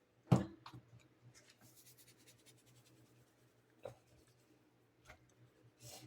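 A sharp knock, then faint scratchy rubbing and a few light clicks as a little sea salt is added to seasoned raw chicken.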